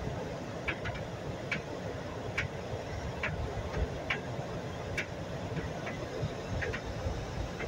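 Regular ticking, a short sharp click about once every second, over a steady rumble of street and traffic noise.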